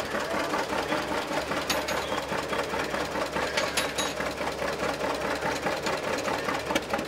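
Antique John Deere two-cylinder tractor engine idling with an even, steady popping beat. Two short sharp clicks are heard about two seconds apart.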